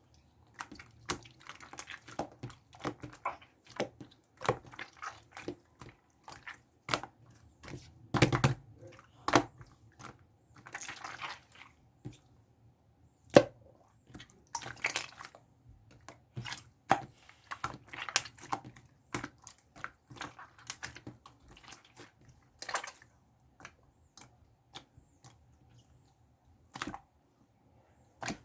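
Slime being squeezed and stretched by hand, making irregular wet squishing clicks and small pops with short pauses between them.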